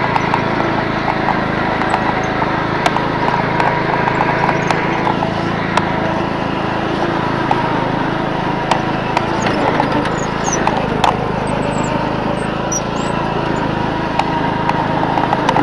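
Engine of the vehicle towing a rider on a board, running steadily with rattling and scattered clicks.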